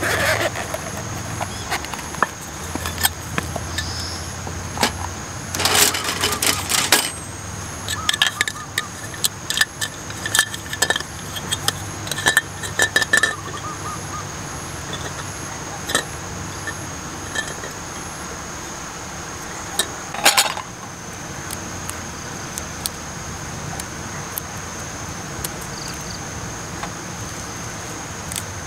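Camping gear handled on a metal mesh camp table: scattered clicks, clinks and rattles as a hard stove case, a gas canister and stove parts are picked up and set down, with denser clattering about six seconds in and a louder clatter around twenty seconds. A steady thin high tone runs underneath.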